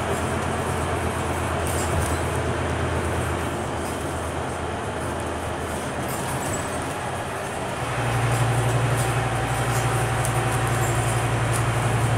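Scania K320UB city bus's five-cylinder diesel engine and road noise heard from inside the passenger cabin as the bus drives along. About eight seconds in, the low engine hum gets louder.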